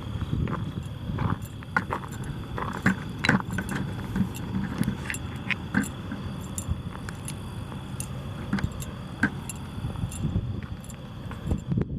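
Keys jingling in irregular small metallic clinks. A faint, steady, high-pitched tone runs underneath.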